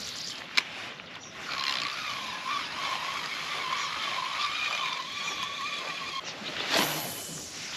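Spinning reel being cranked: a steady, slightly wavering whir lasting about five seconds, after a single click about half a second in. Near the end comes a short swish.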